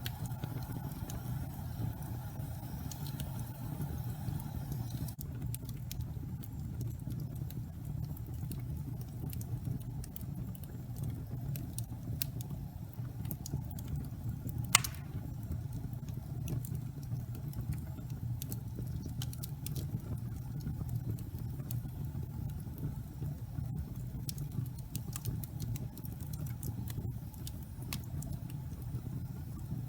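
Wood fire burning in a fireplace: a steady low rumble of flames with scattered light crackles, and one louder pop about halfway through.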